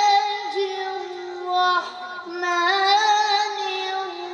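A boy singing solo, holding long notes with ornamented glides between them.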